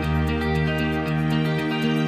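Soft background music: sustained chord notes over a steady light beat.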